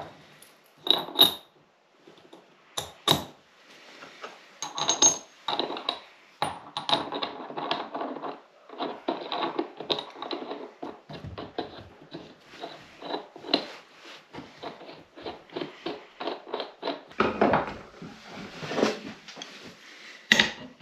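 Steel parts of a trailer wheel hub clinking and clicking as they are handled and fitted: bearings, nut and washers set down on the bench and worked onto the hub, in many short metallic ticks and rattles. A heavier metal knock comes near the end.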